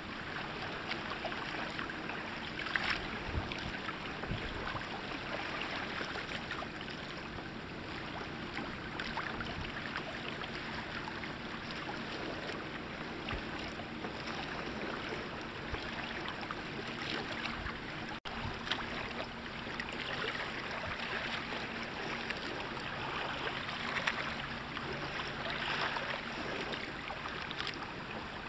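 Water rushing and splashing along the hull of a sailing kayak moving through chop, with wind noise over it.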